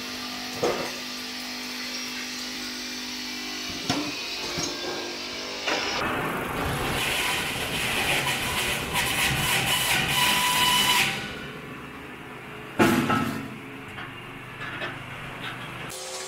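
Rotary veneer peeling line running: a steady machine hum with a few knocks as logs move along the feed conveyor, then, from about six seconds in, the loud rasping hiss of a log being peeled into veneer in the 4-foot rotary peeling lathe, which stops suddenly about eleven seconds in. A single loud knock follows a couple of seconds later, and then only a quieter hum.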